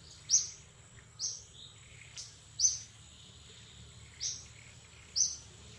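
A bird calling with short, high chirps that drop in pitch, five of them roughly a second apart. A faint, steady high tone runs underneath.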